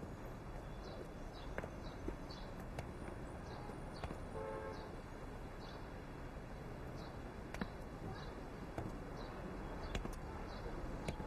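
Quiet outdoor ambience: a steady low hiss with a few faint clicks and scattered faint high ticks, and a brief faint tone about four and a half seconds in.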